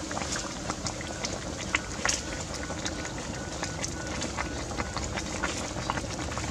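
A pot of chicken and vegetable soup boiling steadily, a continuous bubbling hiss with many small, irregular pops and crackles.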